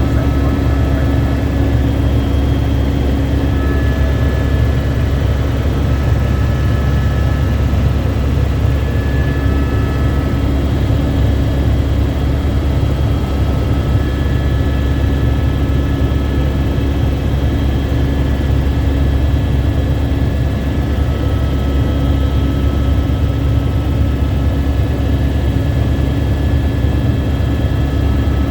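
Helicopter in flight, heard from inside the cabin: a loud, steady rumble of rotor and turbine with a constant hum and faint high whines that come and go.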